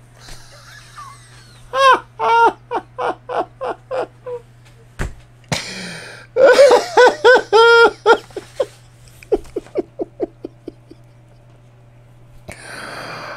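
A man laughing hard in fits: a run of about eight quick "ha" pulses about two seconds in, a louder fit around six to eight seconds, then fading chuckles and a gasping breath near the end.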